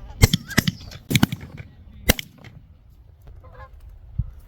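A quick volley of about five shotgun blasts within two seconds, several hunters firing at Canada geese, with geese honking around it.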